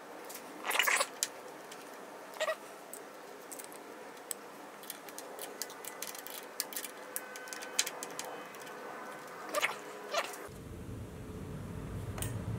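Small clicks and taps of a hand tool and the new aftermarket brake lever as its pivot screw is worked. A few louder brief sounds stand out, near the start and again near the end. A low hum comes in about two seconds before the end.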